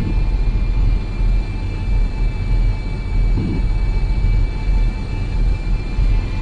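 Dark horror-film ambient drone: a deep, steady rumble with faint high held tones above it.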